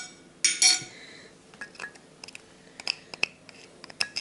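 Two ringing clinks of a glass cup, one at the very start and one about half a second in, then light clicks and scrapes as minced garlic is knocked and scraped out of a plastic garlic chopper.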